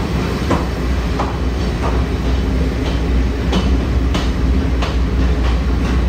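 Kominato Railway trolley train running through a tunnel: a steady low rumble of the wheels on the rails, with repeated clacks about every half second as the wheels pass over rail joints.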